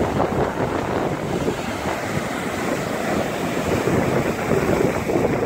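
Strong hurricane wind buffeting the microphone over the steady rush of heavy surf breaking on the beach.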